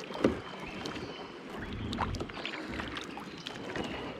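Branches and thorny brush scraping and ticking against a kayak as it moves through them, with one sharp knock near the start.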